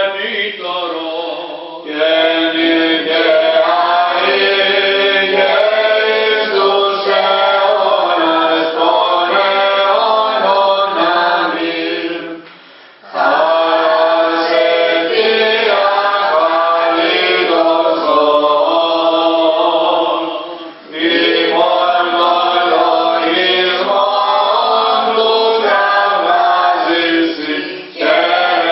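Greek Orthodox Byzantine chant: voices singing long, drawn-out phrases in Greek, with short pauses between phrases about 13 and 21 seconds in.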